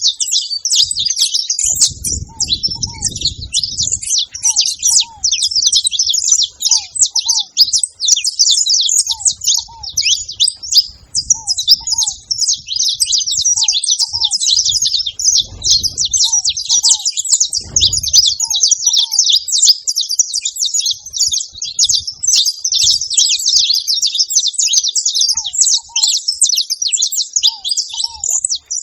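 A group of saffron finches chirping and calling over one another in a dense, continuous chatter at a feeding spot. A lower two-note call repeats every second or two underneath, and low rumbles come and go a few times.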